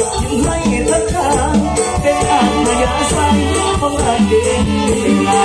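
Loud amplified live mor lam band music with a steady beat and a heavy bass line.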